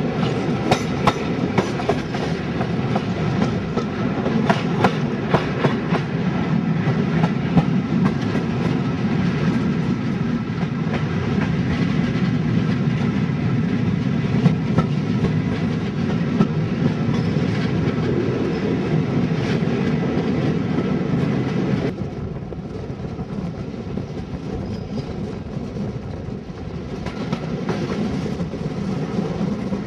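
Passenger coaches of a moving train rumbling along, the wheels clicking over rail joints and pointwork in quick groups, most often in the first few seconds. The whole sound drops in level suddenly about two-thirds of the way through.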